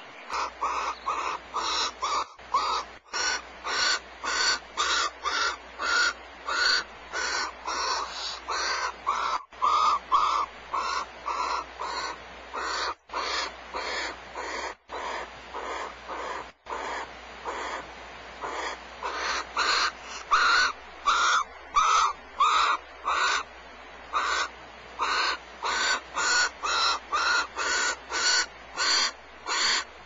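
Barn owls giving short rasping calls over and over, about two to three a second, with a few brief pauses midway.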